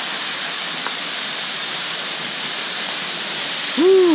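Steady rush of a waterfall, with a person's brief whooping "Woo!" near the end, rising then falling in pitch.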